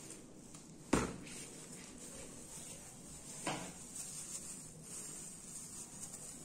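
A cardboard parcel being handled and set down on a table: one sharp knock about a second in and a softer one a couple of seconds later. Light scraping follows, with scissors starting on the packing tape near the end.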